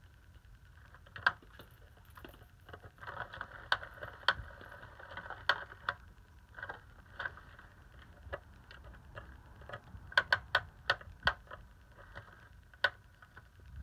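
Kittens' paws tapping and scratching at a plastic electronic cat toy: sharp clicks scattered throughout, with a quick flurry about ten seconds in, over the toy's small motor whirring on and off as its hidden wand moves.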